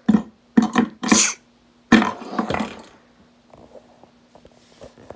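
A child making rough, throaty animal noises with the mouth for toy animals at play: about five short bursts in the first three seconds, then only faint handling sounds.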